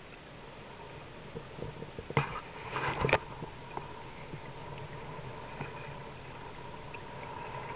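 Choppy water slapping against a sailing kayak's hull under a steady rush of wind, with a cluster of sharp knocks about two to three seconds in.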